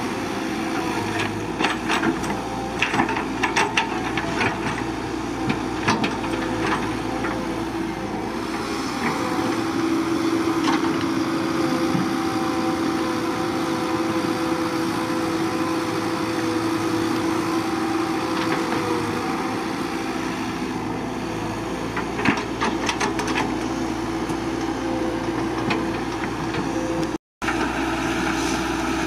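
CAT 312BL excavator's diesel engine running steadily under work, with scattered sharp knocks and cracks from the machine working through brush and rock. The sound cuts out for a moment near the end.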